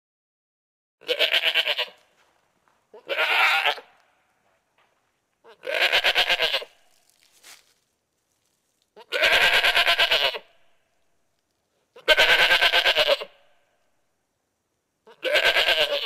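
Domestic goat bleating six times, about every three seconds, each bleat about a second long with a fast quavering pulse.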